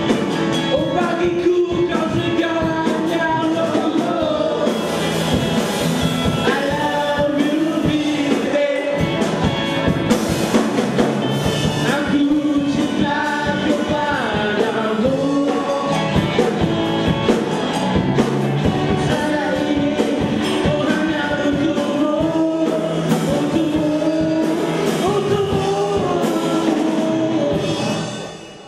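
Live rock band playing a song: voices singing over electric guitars and a drum kit. The sound drops away sharply at the very end.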